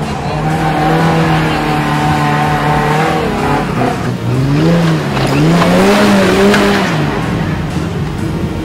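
Off-road 4x4 engine working hard under load, held at steady high revs, then after about four seconds revving up and back down twice.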